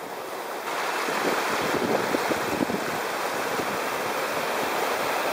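Wien River in flood, its swollen brown water rushing and churning past in a steady, loud rush that steps up in level about a second in.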